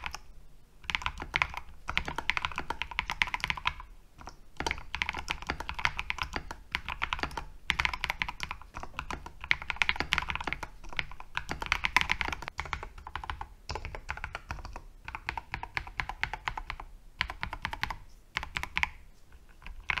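Fast, continuous typing on a KBD67 Lite R3 custom 65% mechanical keyboard: a dense run of key clacks, broken by a few short pauses.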